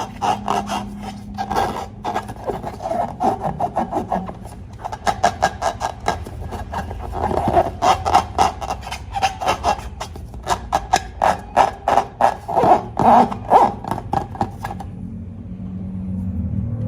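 Slime being worked and squished, a dense run of quick sticky clicks and scraping crackles that comes in waves, stopping briefly near the end.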